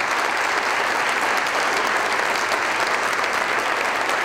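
A large seated audience applauding: many people clapping at once at a steady level.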